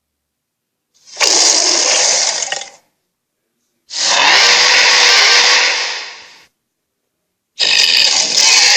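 Cartoon hydra monster's sound effect: three rough, raspy growls, each lasting about two seconds and separated by silence, the last running on past the end.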